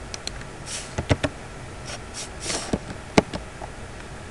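Computer mouse clicking: several short sharp clicks, the loudest about three seconds in, over faint room hiss.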